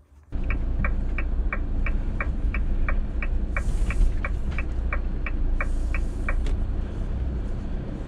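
Motorhome on the road, heard from inside: steady engine and road rumble with the turn-signal indicator ticking about three times a second for some six seconds, then stopping. Two brief rushing hisses pass over it.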